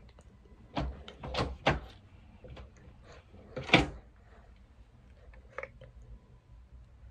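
Wooden fold-down cabinet panel on a gas-spring strut being handled: a quick run of wooden knocks and rattles, then one louder knock a little past the middle as the panel meets the cabinet, and a light tap later.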